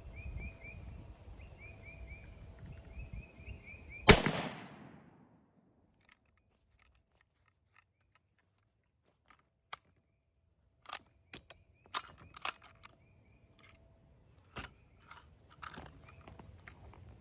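A single rifle shot from a Carcano carbine about four seconds in, ringing out for a second or so. From about nine seconds on come scattered metallic clicks and clacks of the bolt being worked, a bolt that is still stiff after cleaning.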